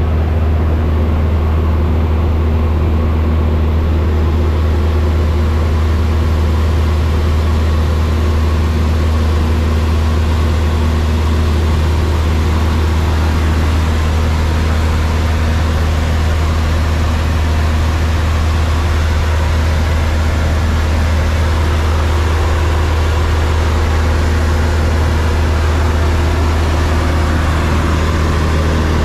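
Steady engine drone with a loud low hum and a few constant tones above it, unchanging throughout.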